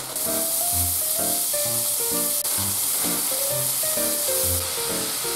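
Bean sprouts sizzling in a hot oiled frying pan, the sizzle starting suddenly as they are tipped in and then holding steady. Background music with a steady beat plays underneath.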